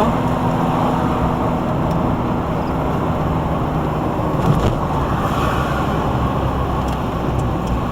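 A car driving along a town street: steady engine and road noise.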